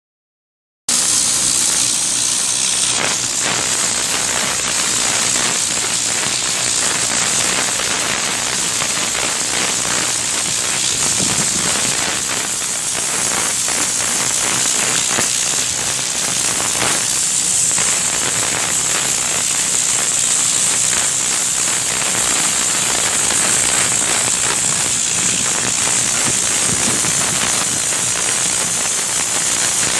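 High-pressure washer jet spraying water onto a house roof: a steady loud hiss with spattering, starting abruptly about a second in.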